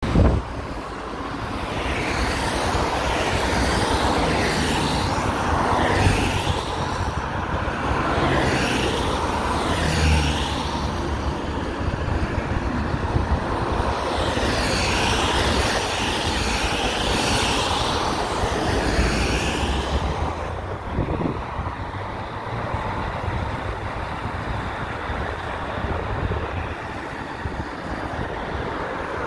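Porsche 992 Carrera 4S's twin-turbo flat-six running and pulling away, mixed with traffic on a wet road: several cars swish past, their tyre hiss on the wet surface rising and falling, over a steady low rumble.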